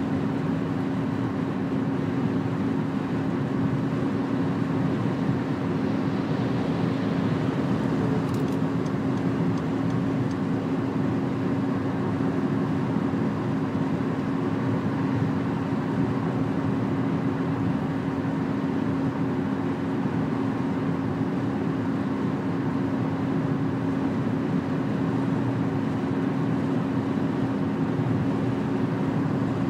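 Steady road and engine noise heard inside a car cabin at motorway speed, with a constant low hum.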